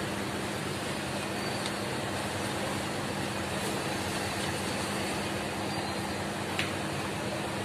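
Steady mechanical running noise with a constant low hum and one faint click about six and a half seconds in.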